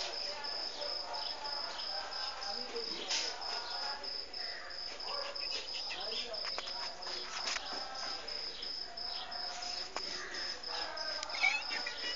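A steady, rapidly pulsing high-pitched insect trill that runs unbroken, with a few soft clicks and faint distant voices underneath.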